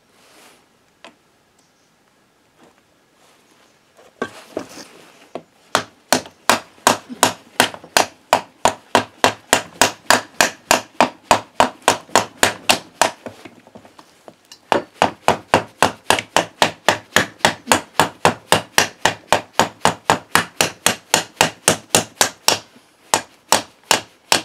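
Mallet striking the crankcase half of a Yamaha YBR 125 engine, a steady run of sharp knocks at about three a second, starting after a few quiet seconds and pausing briefly about halfway through.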